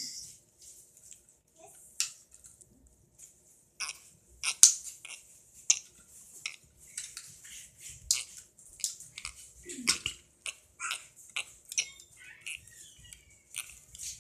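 Plastic parts of a Transformers Rampage action figure clicking and knocking irregularly as they are folded, slid and snapped into place during its transformation.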